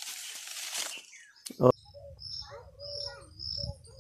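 Mango leaves and branches rustling as they are handled for about the first second, then a single loud thump about a second and a half in. After that, birds call over and over with short high chirps and lower curving notes, over a low rumble.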